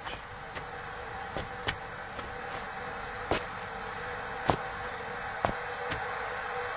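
Outdoor ambience with a short, high chirp repeating a little under once a second over a steady low hum, with scattered sharp clicks.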